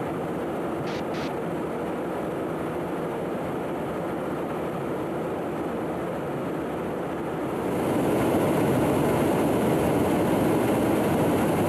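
Steady roar of airflow and engine noise inside a KC-135 Stratotanker in flight, stepping up in loudness and hiss about eight seconds in. Two brief clicks about a second in.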